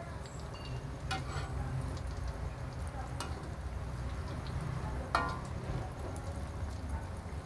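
Tempe slices sizzling as they fry in oil in a wok, over a steady low hum. A metal spatula clinks against the wok three times, the loudest a little past the middle.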